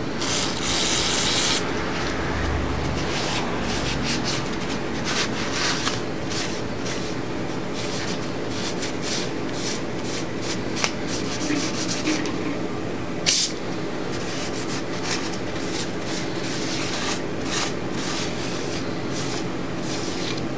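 Blue paper shop towel scrubbing over the front face of an LS 5.3L engine block in a run of uneven wiping strokes, cleaning the front-cover mating surface so the gasket will seal. A louder hiss comes in the first second or so, and one sharp click sounds about thirteen seconds in.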